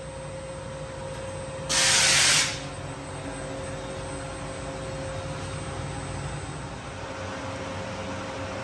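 Fiber laser cutting machine running with a steady hum and a faint constant whine. About two seconds in, a loud hiss of compressed assist gas blows from the cutting head for under a second, then stops.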